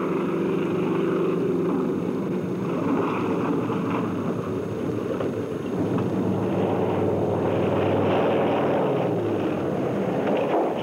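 Propeller biplane's piston engine running steadily, with its low drone growing stronger about six seconds in.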